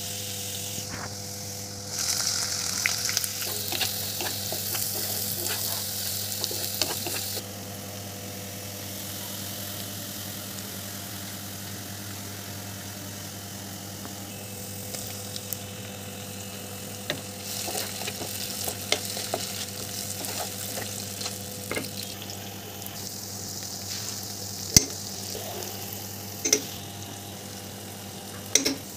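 Chopped garlic, then onions, sizzling in hot oil in a frying pan, louder for the first several seconds and softer after, over a steady low hum. A few sharp clicks of a spoon against the pan near the end.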